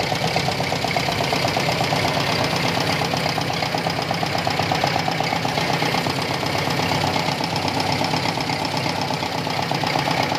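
Toyota Tamaraw FX gasoline engine idling steadily after finally starting.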